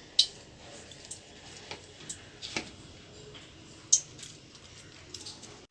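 A few scattered light clicks and taps of kitchen handling as salt is added to cut eggplant strips, the most distinct a little after the start and about four seconds in.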